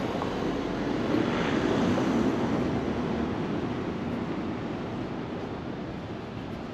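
Outdoor street ambience: a steady rushing noise that swells between one and two and a half seconds in, then slowly fades.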